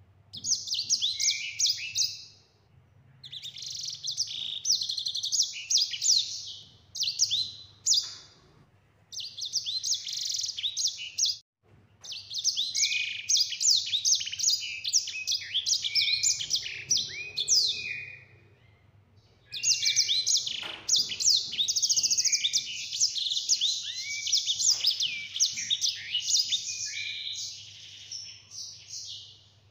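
Caged sanger, a small canary-like finch, singing in long rolling phrases of rapid, high, clear twittering notes. The phrases are broken by short pauses, the longest run lasting about eight seconds near the end.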